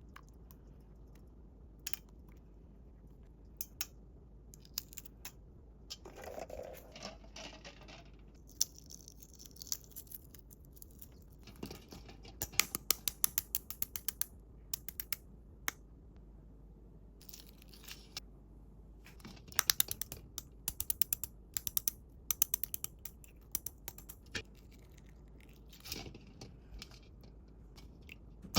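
Small sharp clicks and taps in irregular clusters, some fast runs of them, with a brief rustle about six seconds in.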